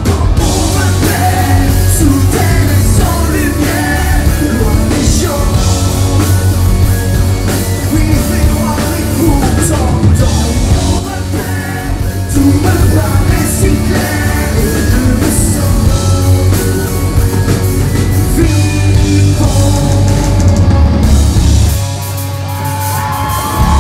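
Live rock band playing loud, with drums, bass, electric guitar and a male singer, heard from the audience. About 22 seconds in, the band drops to a quieter passage with the low end gone.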